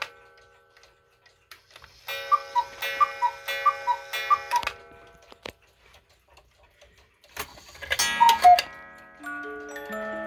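Cuckoo clocks striking: the bellows pipes sound four two-note cuckoo calls in a row, each with a ringing strike, then about eight seconds in another cuckoo calls and a music box starts playing a tune.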